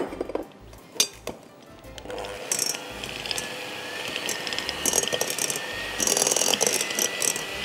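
Electric hand mixer whirring steadily with a high whine as its beaters whisk butter in a glass bowl. It starts about two seconds in after a few handling clicks, and gets louder near the end.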